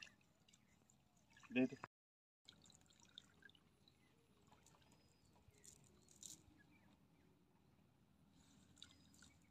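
Near silence: faint outdoor background with a few soft ticks. A brief vocal sound about one and a half seconds in is followed by a short dropout in the audio.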